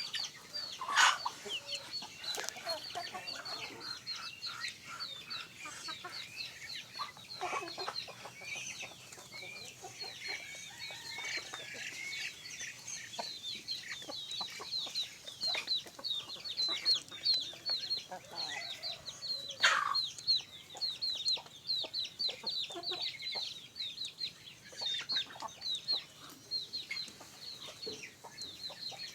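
Free-range village chickens clucking and calling while they feed, over a constant high, rapid chirping. A few louder, falling calls stand out about a second in, at around seven seconds and near twenty seconds.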